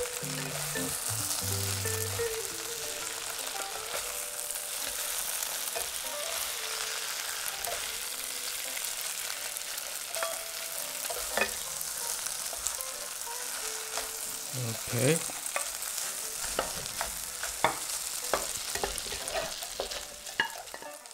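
Flat rice noodles with shrimp and bean sprouts sizzling in a hot wok. A steady hiss is broken now and then by the clicks and scrapes of a spatula and chopsticks against the wok as the noodles are stirred and lifted out. The sizzle dies down near the end.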